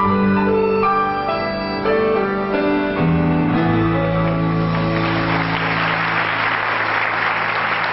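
Theatre pit orchestra with piano ending a song on a long held final chord. Audience applause breaks in about five seconds in and swells over the fading chord.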